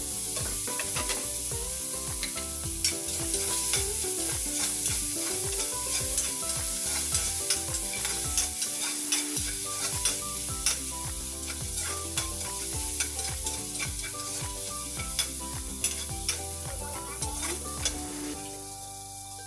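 Food sizzling in hot oil in an aluminium wok while a metal ladle stirs it, with frequent clicks and scrapes of the ladle against the pan. The stirring clicks stop and the sizzle quietens near the end.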